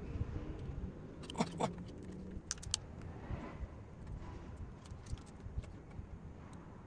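Plastic model kit parts clicking and rattling as the Gundam leg and waist frame is handled and worked on, with sharp clicks about a second and a half in and again near three seconds.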